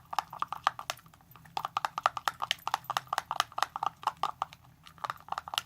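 A utensil stirring a thick, sticky slime mixture of glue, shaving cream and foam soap in a bowl: a fast, uneven run of wet clicks, with a short pause about a second in.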